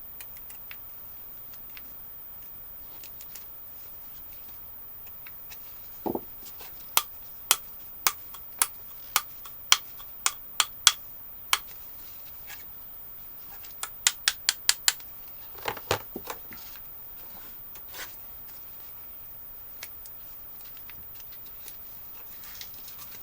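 Sharp clicks, first a run of about ten at roughly two a second, then a quicker run of five and a few scattered ones, with one duller knock just before the first run.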